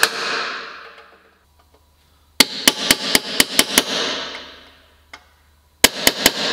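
Hammer strikes on sheet-steel body panels in quick bursts: a few at the start, about six rapid blows some two and a half seconds in, and about four more near the end, each burst ringing out for a second or so. The blows press the new side wall panel and the car's body together ready for spot welding.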